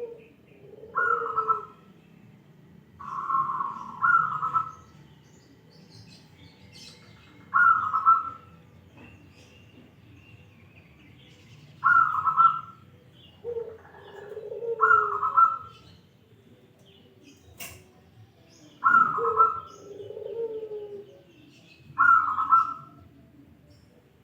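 Zebra dove (perkutut) cooing: short phrases of soft rolling notes repeated every few seconds, about seven times.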